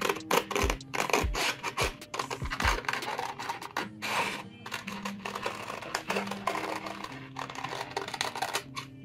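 Scissors snipping through a glossy magazine page in a quick run of short cuts, over background music.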